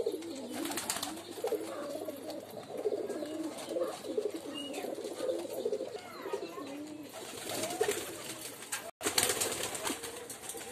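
Domestic pigeons cooing, several birds at once in a continuous run of low, wavering, overlapping coos.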